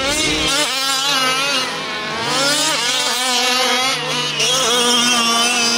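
Several gas-powered fifth-scale RC buggies' small two-stroke engines racing, each buzzing and revving up and down, overlapping at different pitches.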